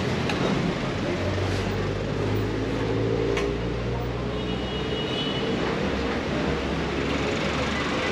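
City street traffic: vehicle engines running with a steady low hum under a constant rush of road noise.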